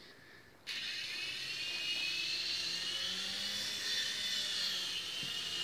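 Small toy RC helicopter's electric motors and rotor blades whirring in flight: a steady high whine that starts abruptly under a second in and wavers slightly in pitch.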